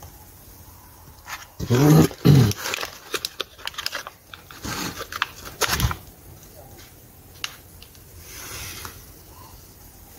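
Two short animal calls about two seconds in, the loudest sound, amid light clicking and rustling of plastic cell trays as tomato seedlings are squeezed out and handled.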